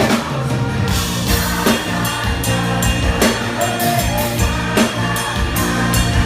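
Live band playing a pop song at a sound check, the drum kit keeping a steady beat over held bass notes.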